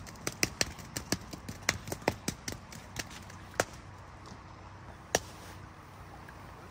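Sharp knocks of a fish club striking a freshly caught sockeye salmon on the gravel riverbank, several a second and irregular. They thin out after about three and a half seconds, with one last hard knock about five seconds in.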